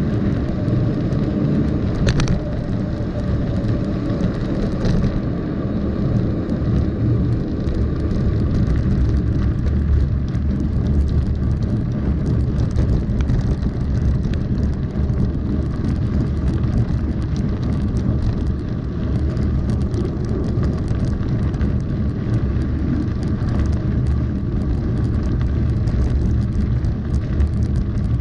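Mountain bike rolling along a gravel road: a steady low rumble from tyres on gravel and wind on the microphone, with a constant fine rattling over it. Two brief sharp clicks come about two and five seconds in.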